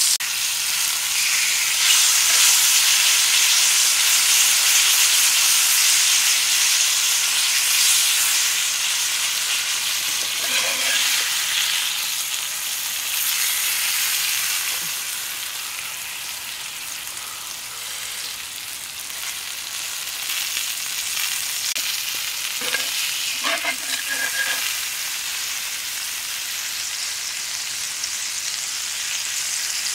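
Hot oil sizzling steadily in a cast-iron pan as beef strips and vegetable halves fry, stirred and turned now and then with a knife blade. The sizzle is loudest in the first half and eases a little after the middle.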